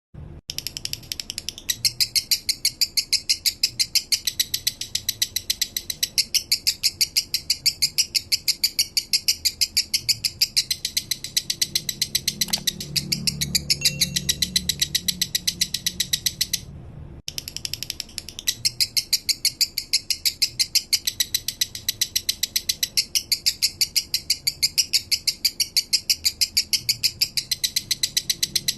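Male lovebird singing a long, slow 'minor' song: a steady run of rapid high chirps, several a second, broken by a brief gap a little past the middle.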